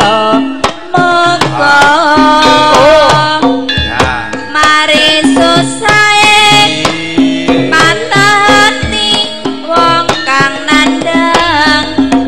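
Javanese karawitan ensemble playing an instrumental passage between sung verses: hand drums keep a steady beat under several melodic instrument lines, some with wavering pitch.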